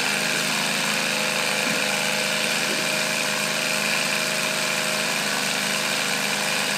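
3D-printed three-cylinder radial compressed-air engine running steadily at high speed, around 1530 rpm, a fast even buzz of exhaust puffs over a constant air hiss.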